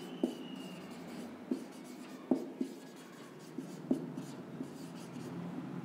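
Marker pen writing on a whiteboard: light scratchy strokes with small ticks as the tip lands, and a brief high squeak near the start.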